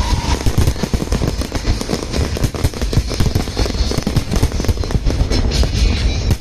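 An aerial fireworks display going off in a rapid, continuous barrage, many sharp bangs and booms a second with no pause.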